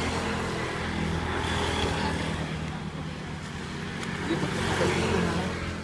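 An engine running steadily with a low hum and a noisy rush over it.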